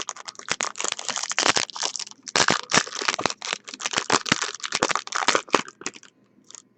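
Foil trading-card pack wrapper crinkling and crackling as it is handled, a rapid run of crackles with a brief lull near the end.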